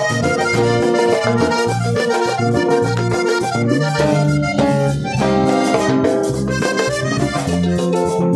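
Live band playing an instrumental break between verses: a button accordion carries the melody over electric bass and percussion, with a steady beat.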